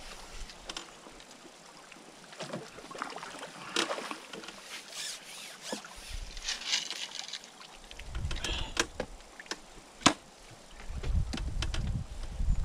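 Water splashing and trickling around a hooked fish being played in, which the angler takes for a carp, with scattered clicks and knocks of tackle. A single sharp knock about ten seconds in is the loudest sound.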